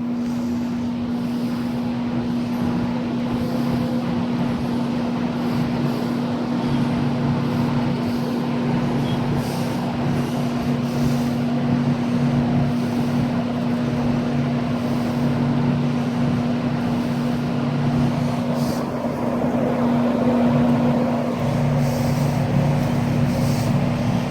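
Old International electric box window fan running on low speed: a steady electric motor hum under the even rush of air from the blades.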